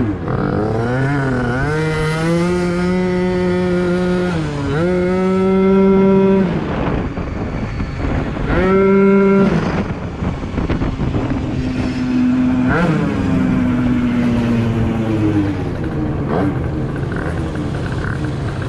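Yamaha Aerox scooter's two-stroke engine with a Polini 70cc big-bore kit, ridden hard. It revs up and holds high revs in three bursts, starting about two, five and eight-and-a-half seconds in, and drops back between them. Later it runs at lower, steadier revs.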